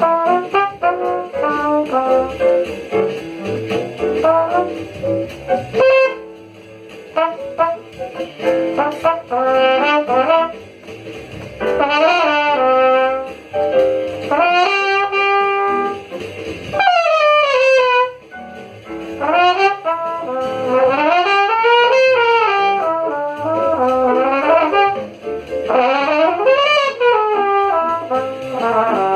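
Jazz music with a brass horn playing a solo melody line, full of quick runs and smears that sweep up and down in pitch, one long falling glide about two-thirds of the way in.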